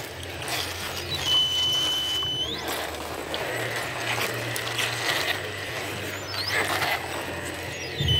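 Axial Ryft RBX10 RC rock crawler's electric motor and gears whining, the pitch holding steady and then rising as the throttle changes. Short knocks and scrapes of its tyres come through as it crawls over loose rocks.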